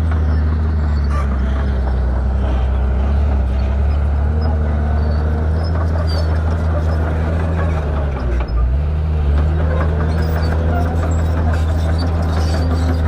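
Shantui bulldozer's diesel engine running steadily with a deep drone. A little over eight seconds in, its pitch and level dip briefly, then recover.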